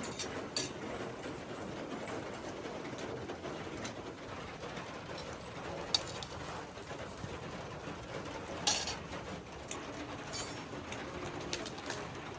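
Birds cooing steadily, with a few sharp clicks or knocks scattered through; the loudest knock comes about two-thirds of the way in.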